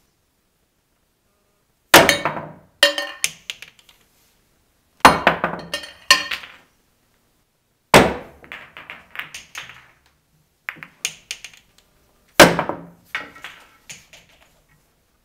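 Pool balls struck with a cue in steep, near-vertical masse strokes: each shot is a sharp crack followed by a patter of smaller clacks and knocks as the balls hit each other and the cushions. Several shots are separated by silent gaps.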